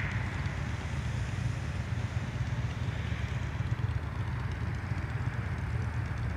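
Steady low rumble of a crowd of motorcycles idling, with road traffic.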